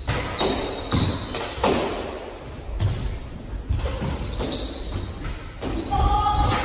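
Squash doubles rally: the ball cracks off racquets and the walls about once a second, with sneakers squeaking on the hardwood floor between shots. The hits ring in the enclosed court.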